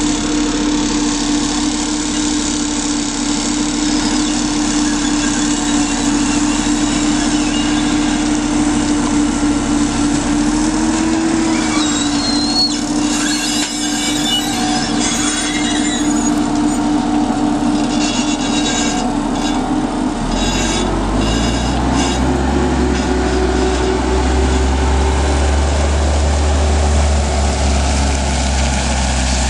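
Patria AMV 8x8 armoured vehicle's diesel engine and drivetrain running with a steady whine while it climbs a steep ramp and drives on. About two-thirds of the way through, the pitch steps up and a deep rumble joins in.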